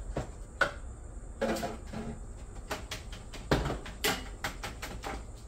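Clicks and knocks of a blender jar and a glass jar being handled as blended spice paste is transferred from one to the other. The two loudest knocks come a little past the middle, and a quick run of lighter clicks follows near the end.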